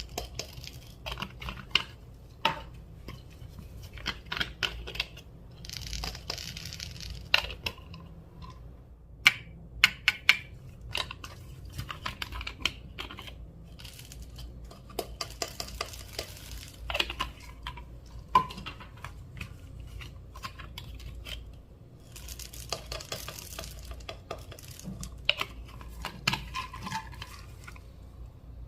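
Clear slime being worked by hand, with many sharp sticky clicks and pops and short crackling stretches.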